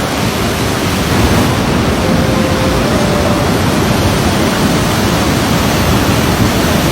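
Loud, steady rushing of floodwater in a swollen river.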